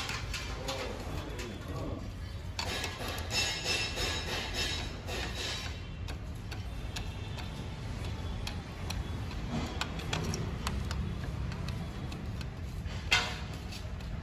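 Metal-on-metal clicking and ticking from a hand tool working the clutch pressure-plate bolts of a Royal Enfield Himalayan, with a rattling stretch a few seconds in and one sharp metallic clack near the end.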